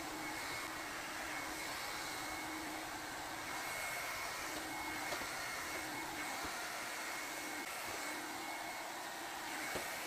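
A 2-in-1 hot-air brush hair dryer running steadily, an even rushing blow of air with a faint high whine from its motor.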